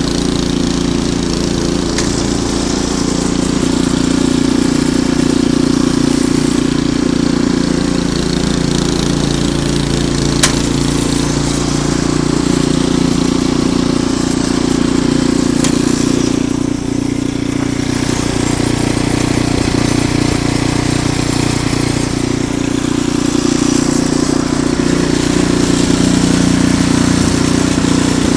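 Ariens Deluxe 28 snowblower engine running steadily at a constant speed, with a single sharp click about ten seconds in.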